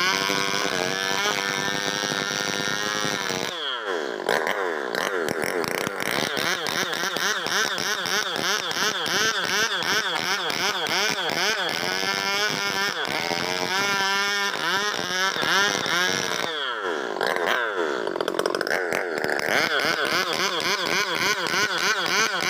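Stihl 070 two-stroke chainsaw cutting timber at high revs, its pitch wavering under load, with a nearly worn-out chain. About four seconds in, and again about seventeen seconds in, the engine drops toward idle and revs back up.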